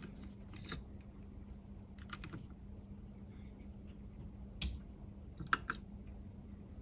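Scattered faint clicks and taps of small metal and plastic parts being handled: crocodile-clip test leads being fastened to a handheld component tester's battery terminals.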